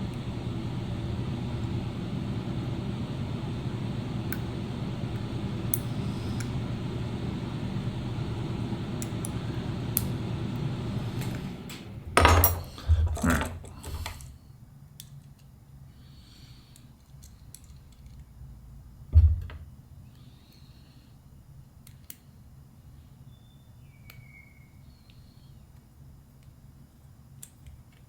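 A steady low hum, like a fan or motor running, stops about eleven seconds in. Small metal tools and parts then clatter on a workbench in a quick run of knocks, with one more sharp knock a few seconds later and light clicks of handling after it.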